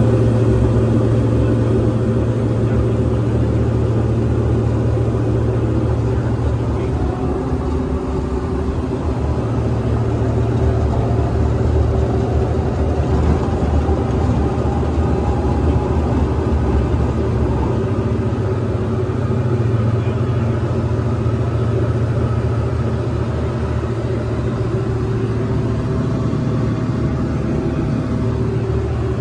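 Diamond DA40 NG's turbo-diesel engine and propeller running at takeoff power, heard inside the cabin as a loud, steady drone through the takeoff roll and climb-out.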